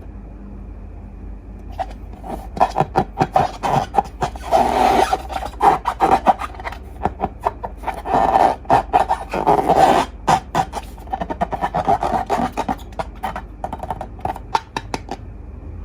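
Hands working slime and rubber balloons, making a dense run of quick crackling clicks and rubbing. It starts about two seconds in, swells twice in the middle and stops shortly before the end.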